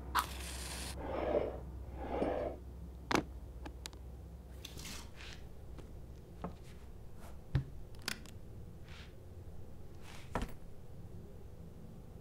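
A small leather case being opened and handled on a table: soft rustling in the first couple of seconds, then a scatter of sharp clicks from its metal latches and contents.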